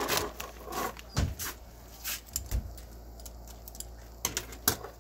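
Small clicks and knocks of plastic and metal Beyblade parts being handled and set down on a table, with a couple of dull thumps against the tabletop and a sharp click near the end.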